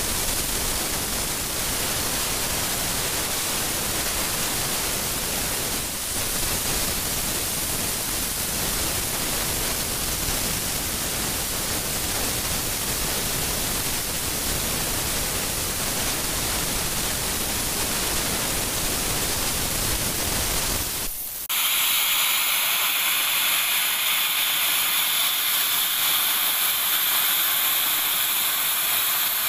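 Plasma cutting torch on a profile cutting machine cutting steel plate: a steady, full hiss of the arc and gas flow. About three-quarters of the way through it changes abruptly to a thinner, higher hiss of a machine-carried cutting torch working through the plate.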